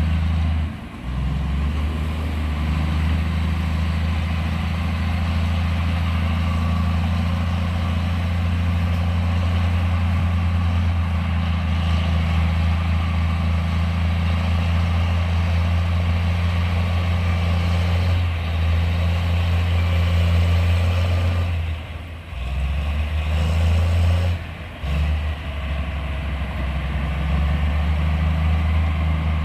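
Heavy construction machinery's diesel engine running steadily with a deep rumble, briefly dropping out about a second in and twice more a little past twenty seconds.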